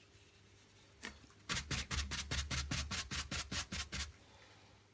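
A stiff blending brush scrubbing quickly back and forth on a stretched canvas, blending wet acrylic sky paint, about six rapid scratchy strokes a second for a couple of seconds, after one faint click.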